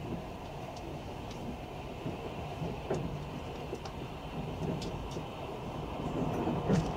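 Passenger train running at speed, heard from inside the carriage: a steady rumble of wheels on rail with scattered sharp clicks. It grows louder and busier near the end as the train runs onto a river bridge.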